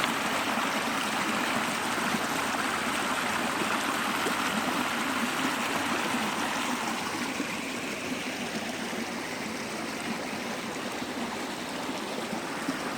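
Floodwater rushing in a steady flow, easing slightly about halfway through.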